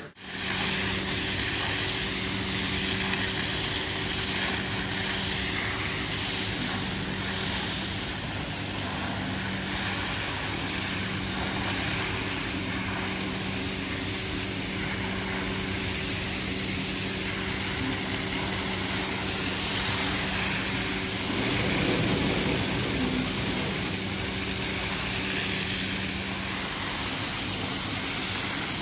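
Motorized rug-cleaning equipment running steadily: a constant motor hum under an even hiss.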